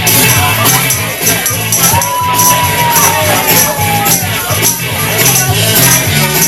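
Music with a steady beat, a repeating bass line and shaker-like percussion; a held note comes in about two seconds in and slowly falls.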